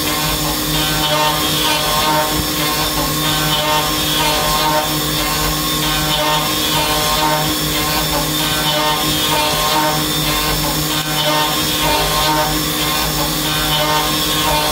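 Fadal VMC 2216 vertical machining center milling an aluminium block with a ball-nose end mill: steady cutting noise over a constant pitched spindle tone.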